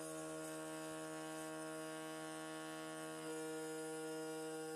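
Small CNC milling spindle motor running steadily, a hum of several even tones, while a 1 mm drill presses on a hardened-steel razor blade without cutting. The mix of tones shifts slightly about three seconds in.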